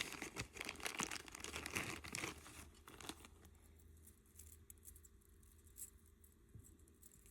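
Plastic bag crinkling as it is opened and handled for about the first three seconds, then dying down to a few faint light clicks.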